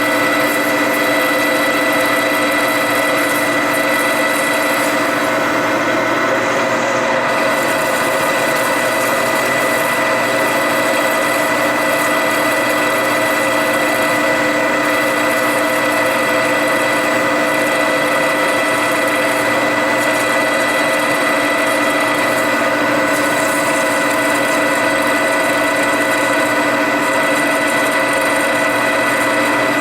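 Metal lathe running at a steady speed, a constant machine whine of several steady tones that does not change.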